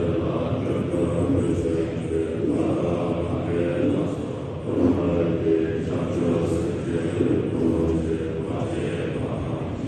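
Tibetan Buddhist prayer chanting: several low voices chant together in a steady drone.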